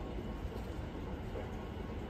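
New York City subway train approaching through the tunnel: a steady low rumble that has not yet reached the platform.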